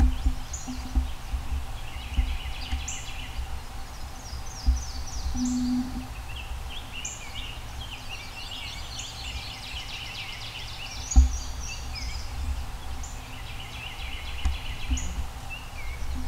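Spring woodland birdsong, with many small birds chirping throughout and a wild turkey gobbler's sounds among them. A few low thumps of the camera being handled, the loudest about 11 seconds in.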